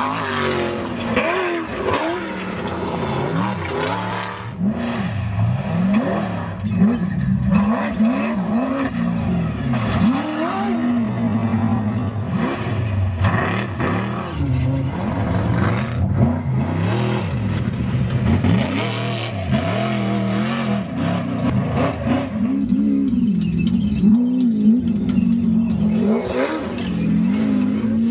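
Off-road desert race trucks and buggies running hard, their engines revving up and down over and over as the throttle is worked.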